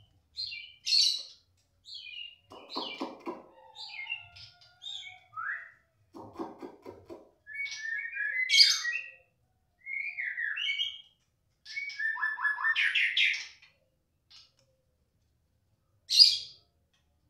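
White-rumped shama (murai batu) song: a quick run of varied whistled phrases with rising and falling glides, mixed with harsh rattling notes, then a short pause and one loud sharp note near the end. It is excited singing, as a shama gives when stirred up by another shama's voice.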